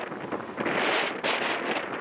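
Wind buffeting the microphone in gusts over a steady rush of sea and air aboard a moving ferry.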